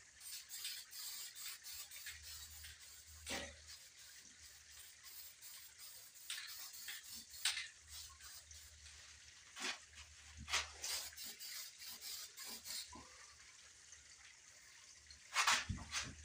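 Aerosol spray-paint can spraying in short hissing bursts, repeated over and over as a coat of paint goes onto sheet metal. A couple of louder clatters come near the end.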